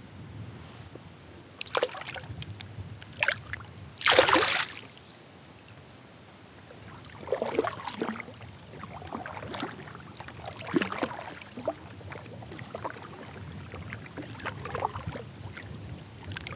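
Kayak paddle strokes, the blades dipping and pulling through calm water every second or two, with a louder splash-like rush of noise about four seconds in.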